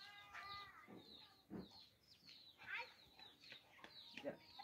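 Faint bird chirps, short falling notes repeating every fraction of a second, with a brief drawn-out pitched call in the first second.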